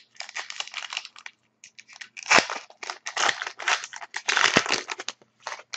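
Wrapper of a 2011-12 Panini Contenders hockey card pack being torn open and crinkled by hand, in uneven bursts of crackly rustling, loudest a little past two seconds in.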